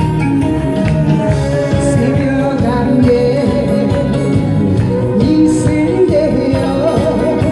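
A singer performing a Korean trot-style song from a medley over a loud, steady instrumental accompaniment.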